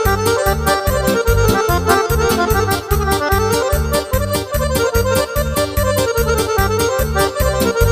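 Instrumental Romanian party music: an accordion plays a quick melody over keyboard chords and a fast, steady bass beat.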